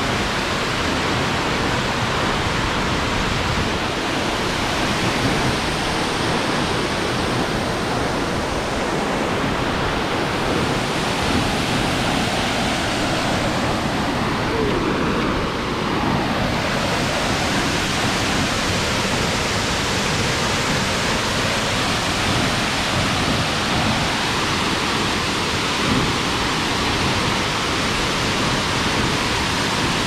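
A tall waterfall's falling water making a steady, loud rushing noise.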